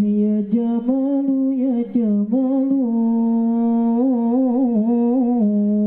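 One voice singing an unaccompanied sholawat vocal line, with ornamented wavering turns and steps between notes, ending in a long held note about two-thirds of the way through.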